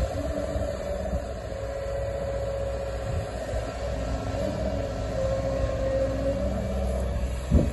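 Hyundai HW140A wheeled excavator running as it digs and lifts sand with its arm and bucket: a steady engine rumble with a steady whining tone over it, and a single thump near the end.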